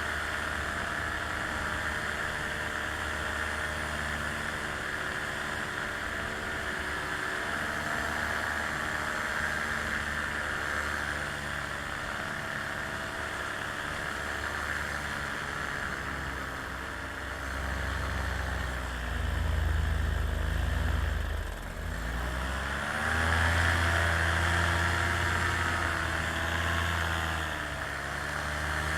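The motor of a small aircraft running steadily, with its pitch dropping and rising again as the power changes, about two-thirds of the way through.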